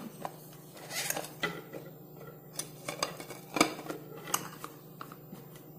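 Non-stick pan and an embossed metal plate knocking and clinking together in several irregular knocks as the pan is turned over onto the plate and lifted off to release a cake.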